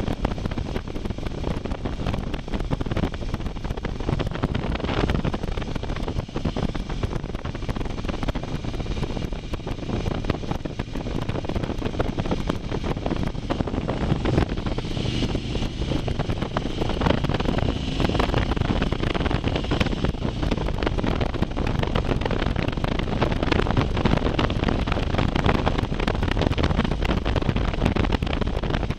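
Motorcycle riding at road speed, with engine noise under heavy wind buffeting on the microphone.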